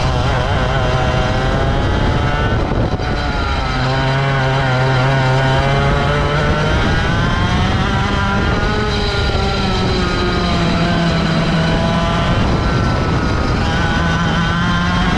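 Racing kart engine at full racing load through a lap: its pitch falls as it slows into a corner, drops briefly about three seconds in, then rises steadily as it accelerates out, easing off and climbing again toward the end.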